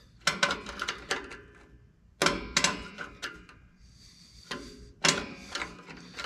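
Star-wheel adjuster of a rear drum brake being turned with a brake adjusting tool through the backing plate, clicking in short bursts of several quick clicks, about four bursts. The shoes are being spread out toward a slight drag on the drum.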